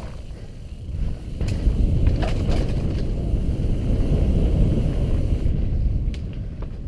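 Mountain bike descending fast on a dirt singletrack: a steady rumble of the tyres on the trail mixed with wind on the microphone, which eases for about a second near the start and then picks up again. Sharp clacks and rattles of the bike over bumps and roots come through it, a few near the start and a cluster near the end.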